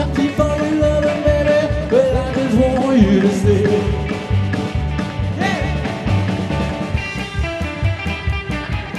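Rock and roll band playing live: a sung vocal line over upright bass, electric guitar and drums with a steady beat. The singing stops about four seconds in and the instruments carry on.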